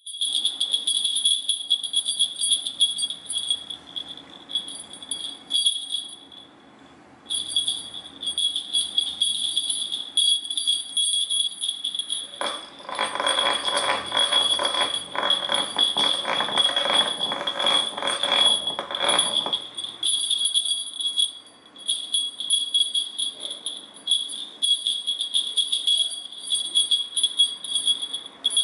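Small jingle bell on a cat wand toy jingling almost continuously as the toy is shaken, stopping briefly twice. For about seven seconds in the middle it is joined by a louder rustling and rattling.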